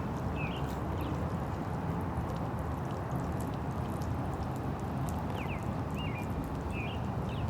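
A steady low rumbling background noise, with a few faint, short, high chirps, mostly in the last few seconds.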